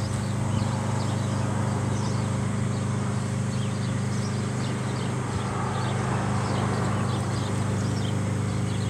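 Lawn mower engine running steadily with a constant low hum.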